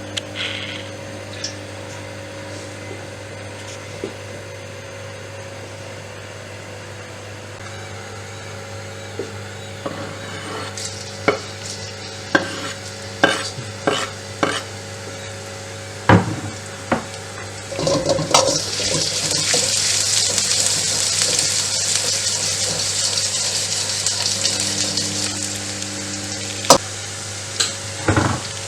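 Cooking in a pan: a cooking utensil knocks and scrapes against the pan several times. About two-thirds of the way in, a loud sizzle of food frying in hot oil starts suddenly and lasts several seconds, easing off, before a few more knocks near the end. A steady low hum runs underneath.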